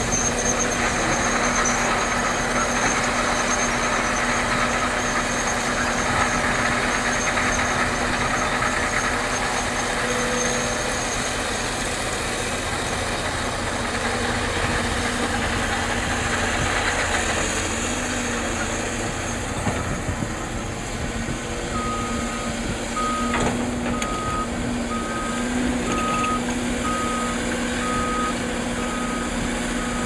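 Diesel earthmoving machinery running steadily at a working pace. About two-thirds of the way through, a reversing alarm starts beeping about once a second and keeps going.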